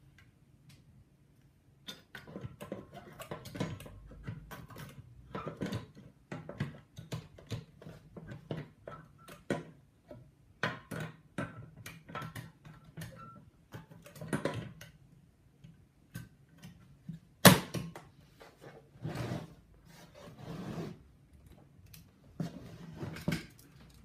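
Olympia de Luxe manual portable typewriter being typed on: an uneven run of clacking keystrokes starting about two seconds in, with one much louder sharp strike about two-thirds of the way through.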